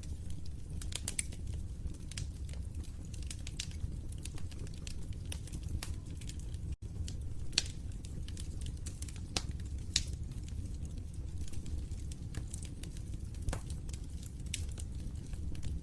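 Fire crackling: irregular sharp pops and snaps scattered over a steady low rumble of burning flames. The sound drops out for an instant about seven seconds in.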